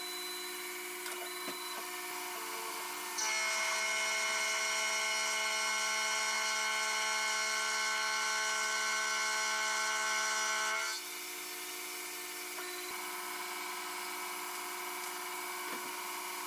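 CNC micro mill spindle running a 6 mm single-flute end mill through aluminium at about 225 mm/min feed. From about three seconds in, the cut gets louder as a steady many-toned whine, then drops back to the quieter spindle hum about eleven seconds in.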